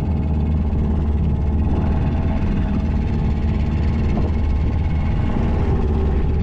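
Fishing boat's engine running steadily, with a constant deep hum, as the boat goes astern while the nets are laid.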